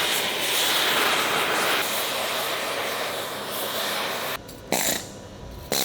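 Oxy-acetylene torch flame hissing steadily as it heats rust-seized periscope cover hinges. It cuts off about four and a half seconds in, followed by a couple of short louder noises.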